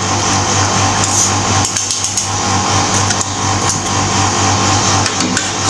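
A steady low mechanical hum with an even hiss over it, with a few faint light clicks.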